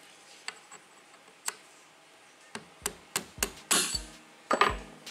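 A hammer tapping a steel punch to drive the spring split pin that holds the action out of a Martini .310 Cadet rifle's receiver. A few faint clicks, then several sharp metal taps in quick succession in the second half, some with a short ring, the loudest near the end.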